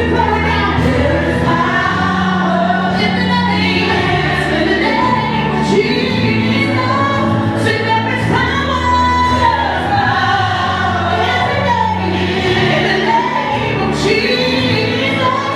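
Gospel choir singing with a band, steady bass notes under the voices.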